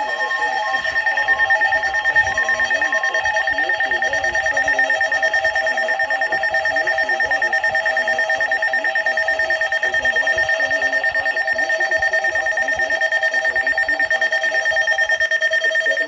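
Emergency alert tone for a Special Marine Warning: loud, steady electronic tones, one high tone held throughout with a lower tone pulsing rapidly beneath it, the pulsing part dropping out near the end.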